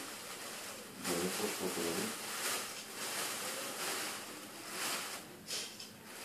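Thin plastic bag rustling and crinkling as it is handled, with a short burst of voice about a second in.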